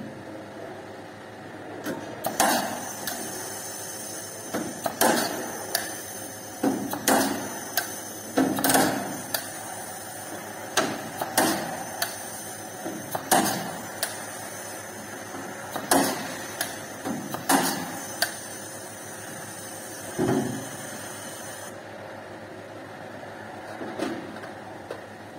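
Air-powered hand tool working on a sheet-metal frame: about a dozen sharp snaps, one every one to three seconds, over a steady high air hiss that stops about three seconds before the end.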